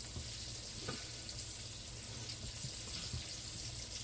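Chicken pieces frying in hot grease, a steady sizzle. The grease is a little too hot.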